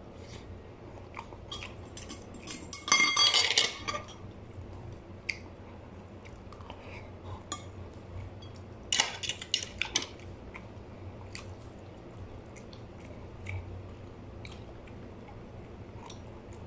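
Metal spoon clinking and scraping against a ceramic bowl in two clusters, a loud one about three seconds in and another about nine seconds in, with small clicks and chewing from eating in between.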